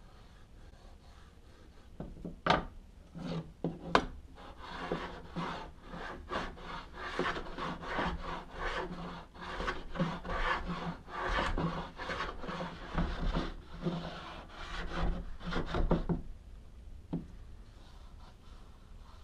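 A hand tool scraping and shaving the wooden spoilboard of a CNC router bed in quick repeated strokes, starting about two seconds in and stopping near the end, with a couple of sharp knocks near the start and one more after the strokes stop.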